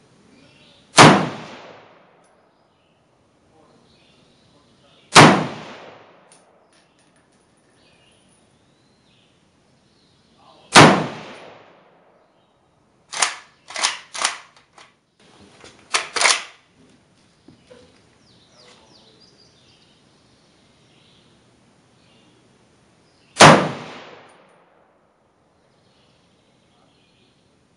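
Four single rifle shots from a Romanian FPK Dragunov semi-automatic rifle in 7.62x54R, about one, five, eleven and twenty-three seconds in, each a loud crack trailing off over about a second. Between the third and fourth shots comes a quick run of five quieter, sharp clacks.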